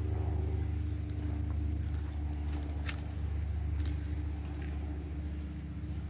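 An engine running steadily with a low rumble and hum, with a few faint clicks over it.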